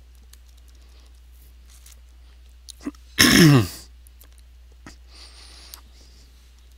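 A man clearing his throat once, about three seconds in: a short, rough sound falling in pitch. Between it there is only a steady low hum and a few faint clicks.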